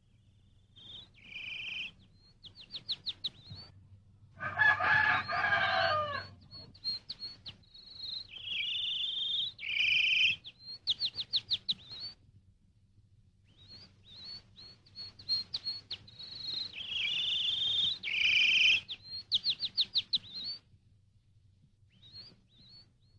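Rural birdsong: a small bird sings the same short phrase three times, a held high note followed by a quick trill, with scattered chirps between, and a rooster crows once about four seconds in.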